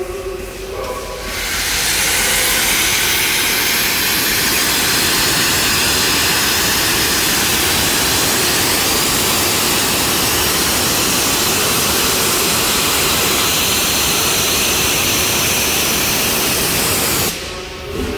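Steam hissing hard from the Royal Scot class 4-6-0 steam locomotive 46100, blowing out low around the front end by the cylinders. The hiss builds in the first second or two, holds steady and loud, and cuts off suddenly near the end.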